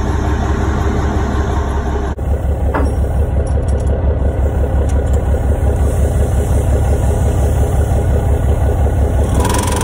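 Dump truck's diesel engine idling, a steady low rumble. The sound changes abruptly about two seconds in.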